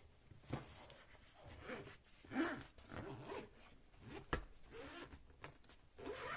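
Faint rustling and rubbing of things being handled, with a few sharp clicks and one louder knock a little over four seconds in.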